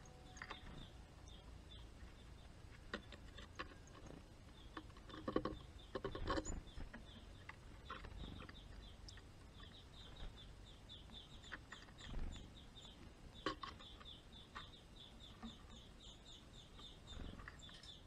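Small wild songbirds at a garden feeder: faint runs of quick, high chirps, with scattered taps and rustles from birds landing and pecking at seed.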